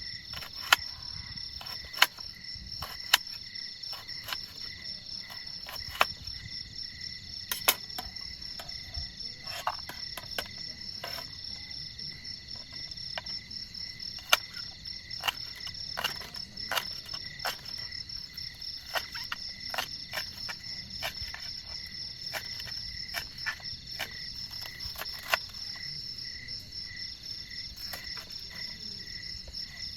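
A steady chorus of crickets trilling in a fast, even pulse, with irregular sharp taps and ticks scattered through it, a couple of them a second at times.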